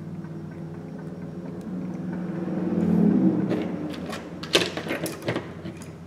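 A steady low hum that grows louder about three seconds in, then a quick run of small sharp clicks and taps from an iPhone being handled.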